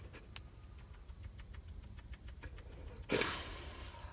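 Husky panting softly, worn out after a long run, with one louder rush of breath about three seconds in.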